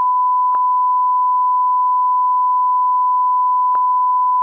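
A loud, steady electronic beep: one pure tone held without change, with a faint click about half a second in. Near the end a second, fainter and higher tone joins it, and both cut off suddenly with a click.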